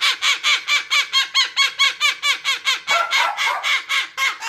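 A parrot calling in a fast, even run of short repeated notes, each rising and falling in pitch, about six a second.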